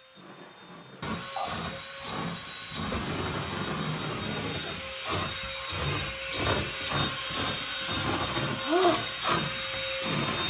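A remote-control wall-crawler gecko's suction fan starts about a second in and runs with a steady whirring hiss. Irregular soft knocks sound over it.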